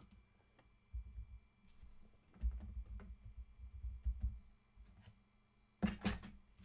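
Typing and clicking on a computer keyboard, with dull knocks through the desk. A pair of sharper, louder clicks comes close together near the end.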